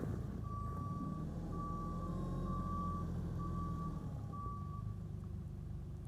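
Reversing alarm on a JCB farm loader beeping five times, about one beep a second, stopping about 5 seconds in, over the machine's diesel engine running.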